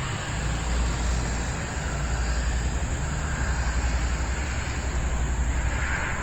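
Gusty wind buffeting the microphone in a low, fluttering rumble, with a faint steady high whine.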